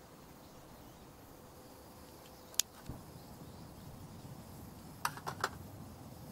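A few sharp clicks: one about two and a half seconds in, followed by a soft low thump, then three quick clicks close together near the end, over a low steady background.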